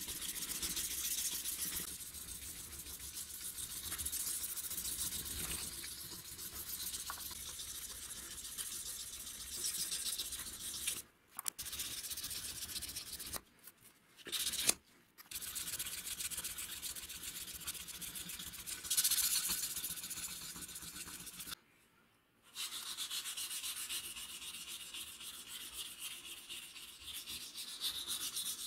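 Sandpaper on a wooden stick rubbed rapidly back and forth over the steel of a pair of pliers by hand, a steady scratchy sanding sound that stops briefly a few times.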